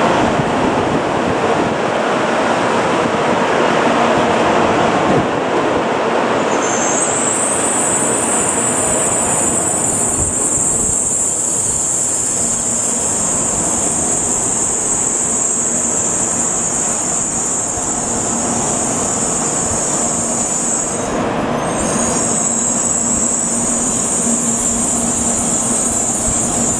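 N700 series Shinkansen train running slowly along the station platform, a steady rolling rumble of wheels and running gear. About seven seconds in a steady high-pitched whine joins it and carries on, dropping out for a moment about three-quarters of the way through.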